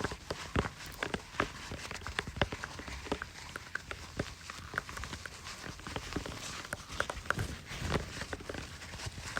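Rapid, irregular tapping and clicking, several sharp taps a second.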